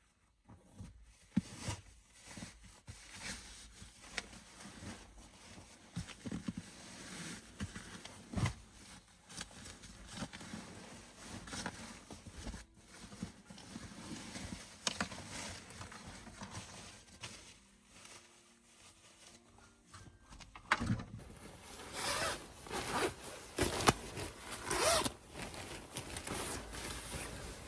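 A run of short rasping, scraping strokes, one after another, that grow louder and busier in the last few seconds.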